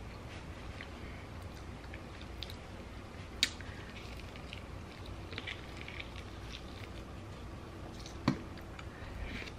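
A person eating sauced chicken wings: biting into the meat, with wet chewing and smacking. Two sharp clicks stand out, about three and a half seconds in and again a little after eight seconds.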